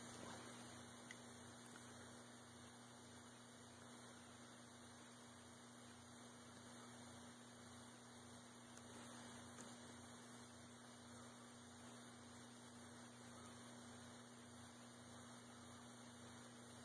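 Near silence: a faint, steady low electrical hum under light hiss.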